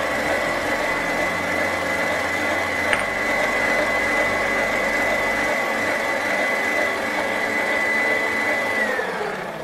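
Electric stand mixer whisking meringue at high speed, a steady whine, slowing and winding down near the end as it is switched off.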